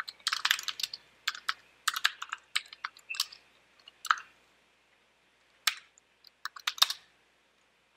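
Typing on a computer keyboard: quick runs of key clicks for the first few seconds, a pause, then a short run of keystrokes near the end.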